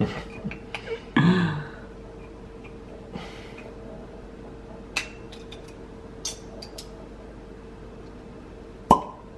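Corkscrew working a cork out of a glass bottle of rosé: scattered small clicks and scrapes as it is wound in, then about nine seconds in the cork pulls free with a sharp pop, the loudest sound. A short vocal murmur about a second in, and a faint steady hum underneath.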